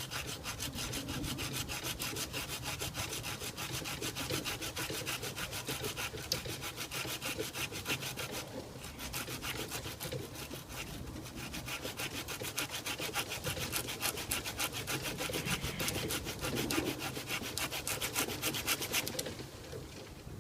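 Hand saw cutting through a tree branch in quick, steady back-and-forth strokes. It pauses briefly twice in the middle and stops shortly before the end.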